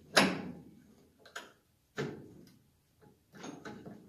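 Metal clicks and knocks from the flywheel of a vintage Ski-Doo Rotax engine as it is seated on the crankshaft and turned by hand. A sharp clack comes at the start, then scattered lighter clicks, with a few close together near the end.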